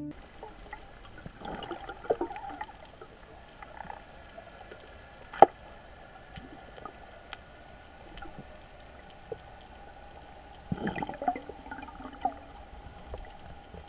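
Underwater sound picked up by a camera below the surface during a freedive: a faint, muffled hush with scattered clicks and knocks. There is one sharp click about five seconds in, and short flurries of knocking around two seconds and again near eleven seconds.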